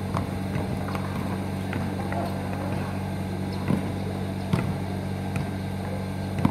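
Basketball bouncing on an asphalt court: a few sharp thuds spaced just under a second apart in the second half. Under them runs a steady low mechanical hum.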